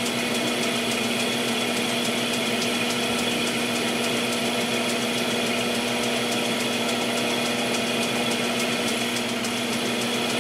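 Metal lathe running steadily with its tool taking a dry cut on the shoulder of a rifle barrel, a constant machine hum with a steady tone and a faint fast ticking.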